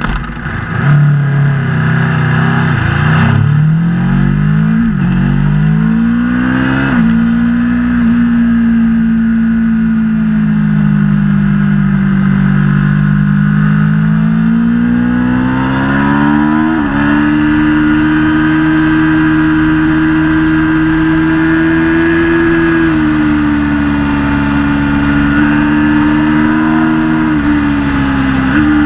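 Aprilia Tuono V4 motorcycle's V4 engine accelerating hard at full throttle. The pitch climbs and drops sharply at each upshift, three quick upshifts in the first seven seconds and several more later. In the middle it runs on a long slow dip and rise through a corner.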